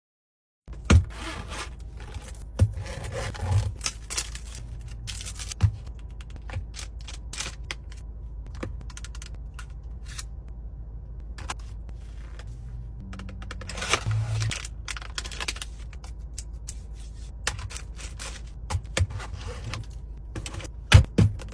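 Objects being handled and set down while restocking: scattered sharp clicks and taps with some scraping, over a steady low hum.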